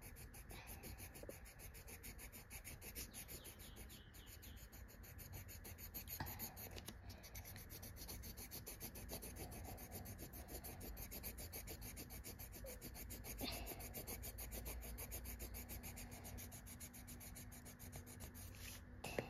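Coloured pencil rubbing on paper in quick back-and-forth strokes as an area is coloured in: a faint, continuous scratching.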